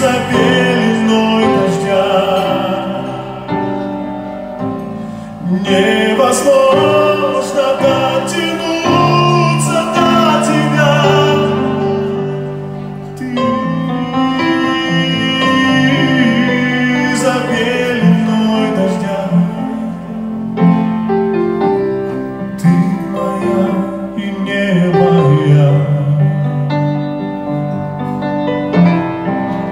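A man singing a slow ballad into a microphone, accompanied by a grand piano.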